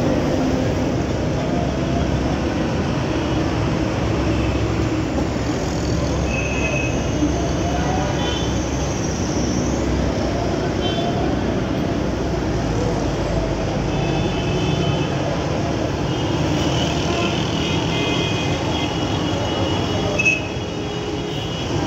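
Heavy city road traffic: a steady mix of engine and tyre noise from buses, trucks, vans and motorbikes passing below, with a few short high tones and a rising whine partway through. A sharp click comes near the end, after which it is slightly quieter.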